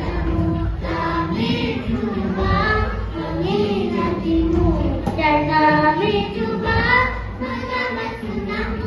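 A group of girls singing a nasyid together, with a lead voice on a hand-held microphone.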